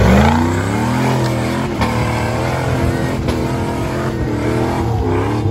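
Engine of a lifted off-road 4x4 revving hard under load as it climbs a muddy slope. The pitch rises sharply at the start, then wavers up and down as the driver works the throttle, with two short knocks partway through.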